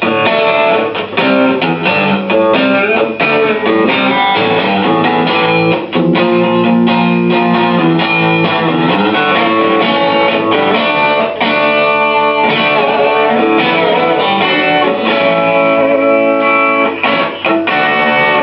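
Stratocaster electric guitar played through the Dirty Dog distortion pedal's lead channel, distorted chords and single notes ringing on with little break, a short pause about six seconds in. The lead channel's gain is hotter than with the other guitar.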